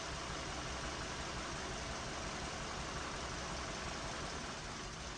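2017 Hyundai Sonata's four-cylinder engine idling steadily with one ignition coil's connector unplugged as a test; the idle changing with the coil off marks that coil as good.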